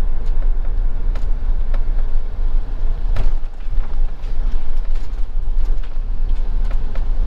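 Motorhome engine and road rumble heard from inside the cab while moving slowly, a steady low drone with a few light knocks and rattles.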